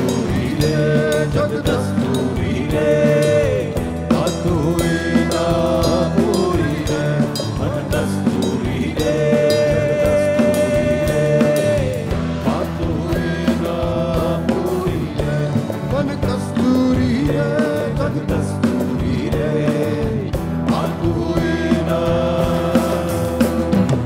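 Live fusion-rock band playing, with bass guitar, drum kit and hand percussion under long held sung notes.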